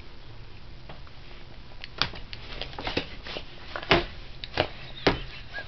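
Irregular light clicks and taps, about a dozen over a few seconds, with a louder tap about four seconds in, over faint room noise during a baby's high-chair feeding.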